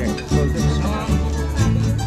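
Live band playing a song: plucked guitar over bass notes that change about every half second.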